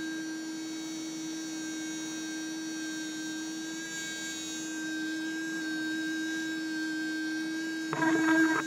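Handheld sonic coin cleaner running with a steady electric hum, like an electric toothbrush. Near the end it breaks into a louder rattling buzz.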